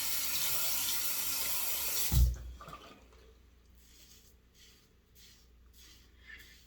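Water tap running steadily into a sink, shut off about two seconds in with a low thump. After that come faint, short, repeated scrapes of a stainless steel safety razor cutting two days' stubble.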